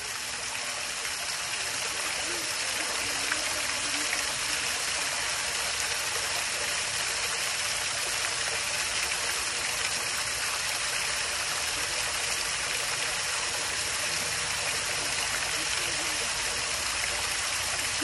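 Water fountain running, its jets and falling water making a steady rushing splash that grows a little louder over the first couple of seconds and then holds even.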